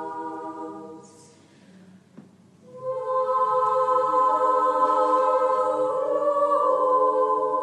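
Background music: a choir singing long held chords. It fades out about a second in, and a new chord swells in about three seconds in and holds.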